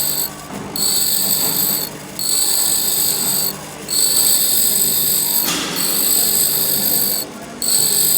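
Pedestal grinder's abrasive wheel grinding a steel drill bit, a high-pitched grinding whine in passes of about one to three seconds. The whine drops out briefly several times as the bit is lifted off the wheel, while the grinder motor's low hum runs on.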